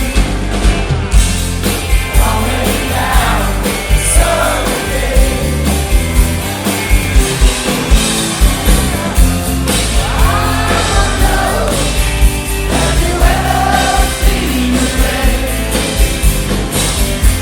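Live rock band playing a song with a sung lead vocal over a steady drum beat and bass.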